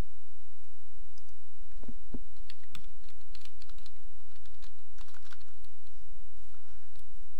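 Typing on a computer keyboard: a short run of keystrokes entering one word, about two to six seconds in, over a steady low hum.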